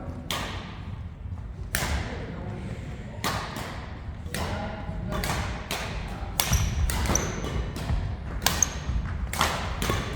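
Badminton rally: sharp racket strikes on the shuttlecock, about one to two a second, mixed with footsteps and short high shoe squeaks on the court floor.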